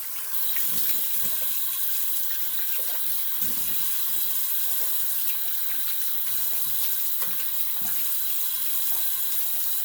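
Water running steadily from a bathroom tap into a sink during the rinse at the end of a wet shave.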